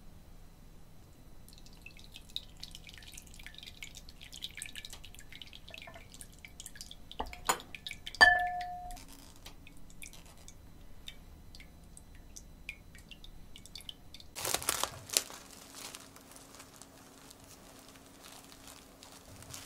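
Liquid mixture pouring through a small metal strainer into a ceramic bowl, dripping in many fine light ticks. About halfway through, two sharp metallic knocks ring briefly, the second the loudest. Near the end, plastic cling film crinkles loudly for about a second as it is pulled over the bowl.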